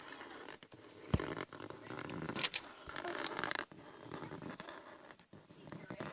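Pen scratching across paper in short strokes as a donut shape is outlined, with a single sharp knock about a second in.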